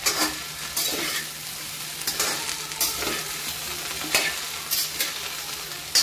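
Chopped okra frying in oil in a kadhai, a steady sizzle, as a flat metal spatula scrapes and turns it over against the pan about once a second.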